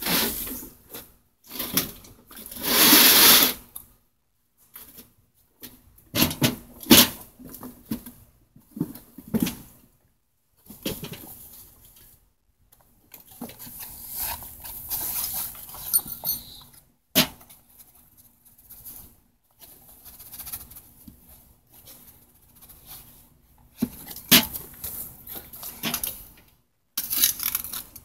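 Petrobond sand mold being knocked out of its wooden flask into a galvanized steel tub: sand rustling and scraping in stops and starts, with irregular sharp knocks and clinks against the tub and the cast aluminum bell.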